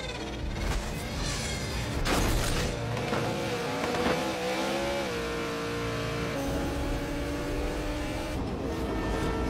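Two race cars, a supercharged V8 Dodge Charger and a Toyota Supra, accelerating hard side by side. The engines rev up and drop back at several gear changes, over tyre squeal as they launch.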